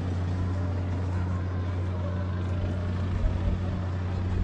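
Engine of a moored cruise boat idling: a steady low hum.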